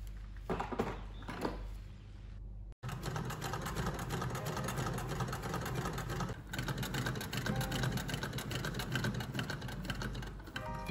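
A few soft knocks and rustles as an iron is pressed and slid over towelling. Then a vintage sewing machine runs fast, its needle clattering in a rapid even rhythm, with a brief pause about six seconds in.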